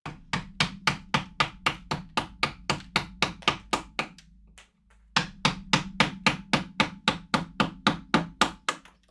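Mallet driving a carving chisel or gouge into wood, sharp knocks at about four blows a second. The blows come in two runs with a brief pause about four seconds in.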